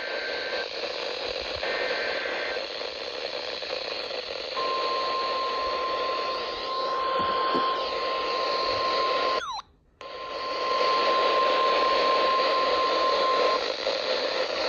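Emergency Alert System broadcast received over a weather radio with static hiss: short data-header bursts near the start, then the single steady attention tone of a NOAA Weather Radio warning, about nine seconds long, cut by a half-second dropout in the middle. It signals that a warning message is about to follow.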